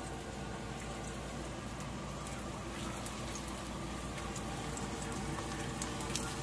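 Kimchi pancake batter sizzling steadily in hot oil in a frying pan, with a few faint clicks.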